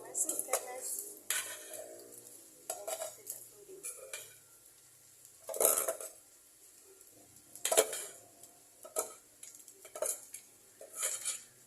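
A metal utensil clinking and scraping against cookware in irregular strikes while food is stirred, the loudest strikes about halfway through.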